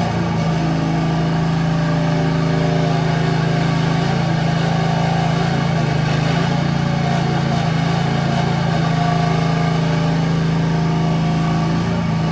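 Engine of a 1-ton mini excavator running steadily as the machine works, its pitch dipping and recovering slightly a couple of times.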